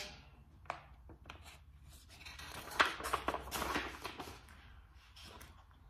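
Picture book's paper pages rustling as they are handled and turned, with a few light clicks, mostly in the middle.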